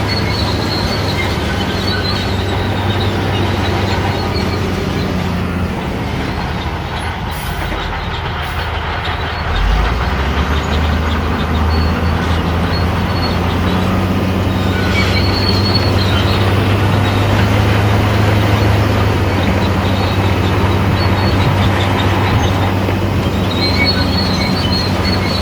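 Shantui crawler bulldozer working, its diesel engine running steadily with the pitch shifting as the load changes, and its steel tracks squealing now and then.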